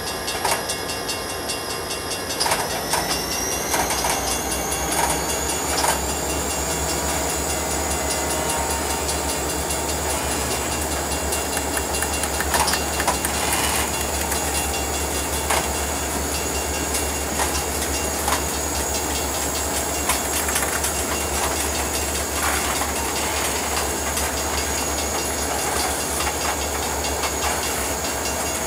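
Freight train of covered hopper cars rolling past steadily, with a continuous low rumble and scattered clicks and clunks from the wheels and couplers. A thin high whine rises slightly about two seconds in, then holds steady.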